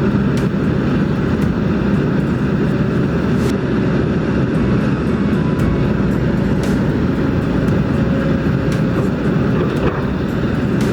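Kobelco SK200 hydraulic excavator's diesel engine running steadily under working load, with a few faint clicks.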